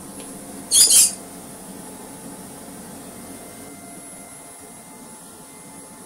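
Vorwerk VR100 robot vacuum cleaner running with a steady hum while it cleans. About a second in comes a short, loud, high-pitched scratchy squeak in two quick pulses.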